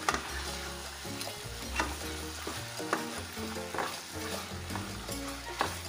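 Thick mango chutney sizzling and bubbling in a non-stick wok as a spatula stirs it, with a steady hiss and a few sharp taps and scrapes of the spatula against the pan.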